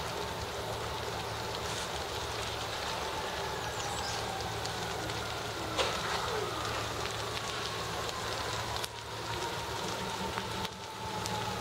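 Steady rushing hiss of a house fire burning while fire-hose water streams pour onto it, over the low steady drone of a fire engine running its pump. One sharp crack about six seconds in.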